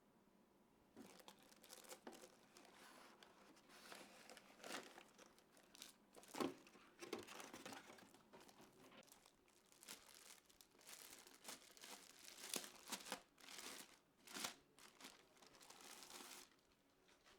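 Plastic packaging being handled: quiet, irregular crinkling and rustling with a few sharper crackles, from about a second in until shortly before the end.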